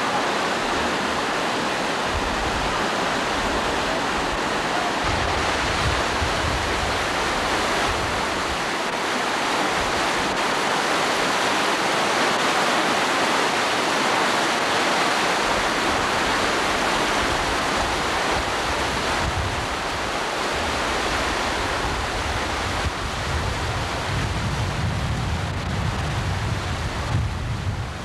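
Creek water rushing steadily over a small concrete weir, with wind rumbling on the microphone at times.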